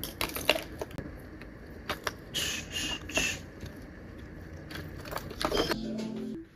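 Light clicks and rustles of makeup items and packaging being handled and put into a fabric cosmetic bag, with a couple of brief rustling swishes about two and a half and three seconds in.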